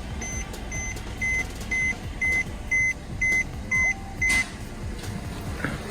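A high electronic warning beep repeating about twice a second, stopping about four and a half seconds in, over a low rumble.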